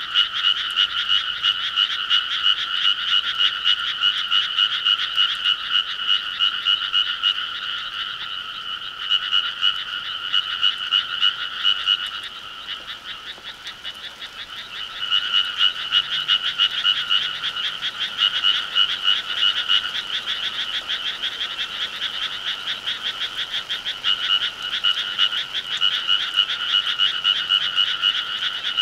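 A loud chorus of many frogs croaking in rapid, overlapping pulses. Near the middle the chorus drops off for a few seconds, then starts up again at full strength.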